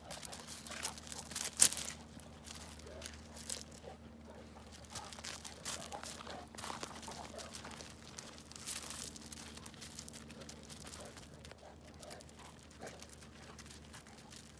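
Two Boerboels play-fighting on a gravel drive: their paws scuffle and crunch on the gravel in irregular bursts, with one sharp knock about a second and a half in.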